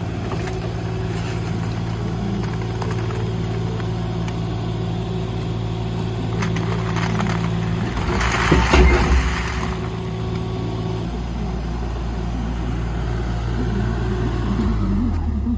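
An engine running steadily. About eight seconds in comes a loud stretch of clatter and scraping, and near the end the engine note shifts and drops.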